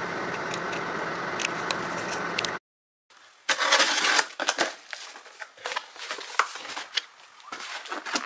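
A blade slitting the packing tape on a cardboard shipping box, then the flaps pulled open with scraping, crackling cardboard and rustling. Before this, a steady car-cabin rumble runs for the first couple of seconds and then cuts off abruptly.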